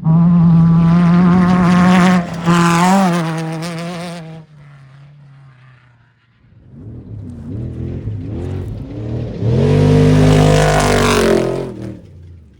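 Two off-road race vehicles passing one after another, their engines loud: the first is already close at the start, its pitch wavering briefly before it fades out; the second builds up and passes loudest shortly before the end.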